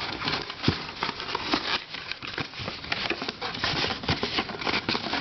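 Big plastic puzzle ball being handled, with dense, irregular clicking and rattling of its plastic parts.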